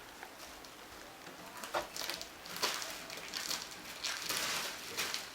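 Packaging being handled during an unboxing: irregular crinkling and rustling, in several short bursts.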